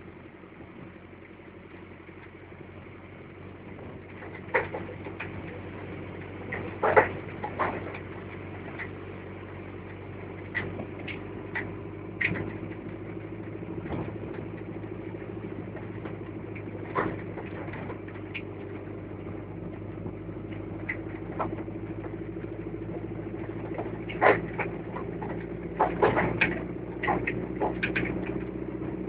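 A vehicle's engine running steadily while driving, with many short sharp knocks and rattles throughout that come thicker and louder in the last few seconds.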